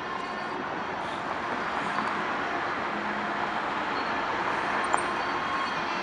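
EMD GP-9 diesel locomotive running steadily while shunting, with a single sharp click about five seconds in.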